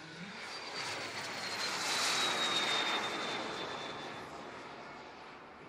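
Elite Aerosports Havoc RC turbine jet flying past: the jet roar swells to a peak about two to three seconds in and then fades, and its high turbine whine drops in pitch as it goes by.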